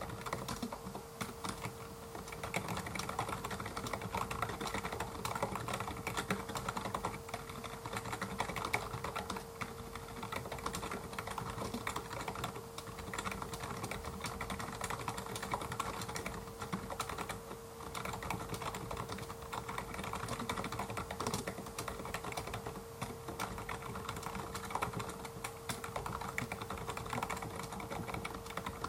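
Continuous fast typing on an LG gaming keyboard, its keys making a clicky sound in a steady, irregular patter.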